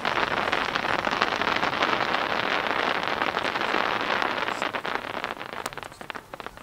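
Aerial firework shell crackling: a dense, rain-like crackle from the burning gold trailing stars of a large willow-type burst, thinning and dying away near the end.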